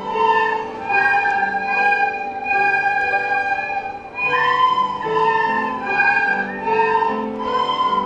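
A children's ensemble playing a melody together on soprano recorders, with lower accompanying notes beneath. The melody breaks off briefly about halfway through, then resumes.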